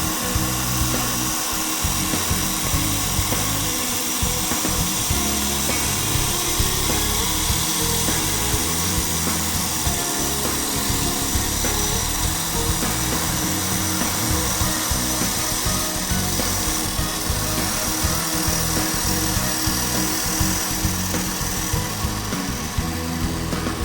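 Background music over the steady whine of a CNC wood lathe cutting wood.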